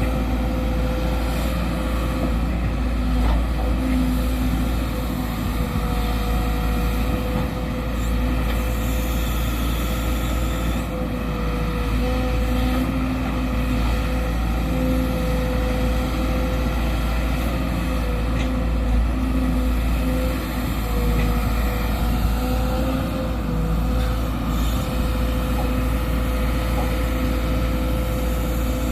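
Sumitomo SH210 hydraulic excavator's diesel engine running steadily at work: a constant drone with a steady whine above it, swelling and dipping slightly in level.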